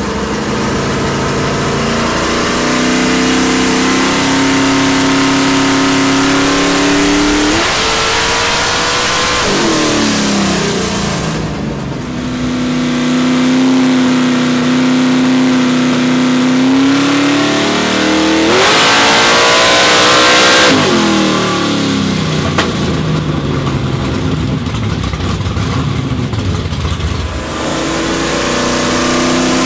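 Nitrous-assisted LS-based V8 with a four-barrel intake, revving hard on a chassis dyno. It holds steady notes, climbs sharply and winds back down twice, then starts rising again near the end.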